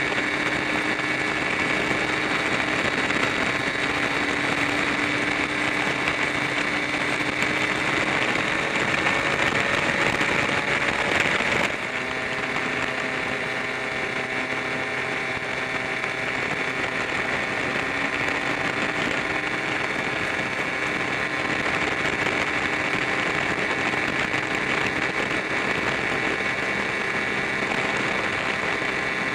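Scooter engine running steadily at cruising speed, with road and wind noise, changing pitch and dropping slightly in level about twelve seconds in as the throttle eases.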